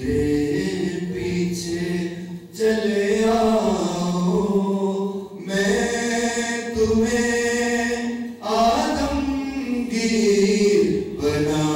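A man singing unaccompanied into a microphone, a slow chant-like devotional song in long held phrases of about three seconds each, with short breaths between them.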